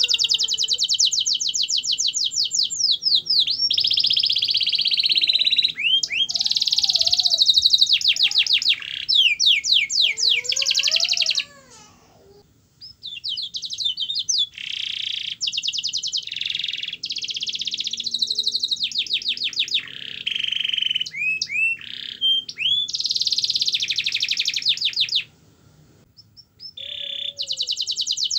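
Domestic canary singing in full song: long, fast rolling trills and rapid strings of repeated high notes, broken by two short pauses, one about eleven seconds in and one near the end. Sung as a lure (pancingan) to set other canaries singing.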